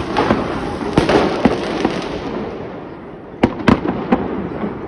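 Fireworks going off: a string of sharp bangs over a continuous crackling hiss, with the loudest pair of bangs about three and a half seconds in and the crackle slowly dying away.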